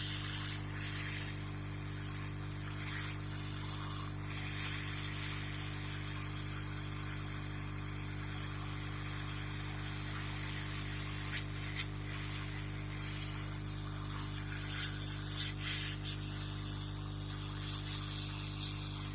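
A brush scrubbing the PCI Express slot on a motherboard with thinner, a scratchy hiss that comes and goes, over a steady electrical hum, with a few small clicks partway through.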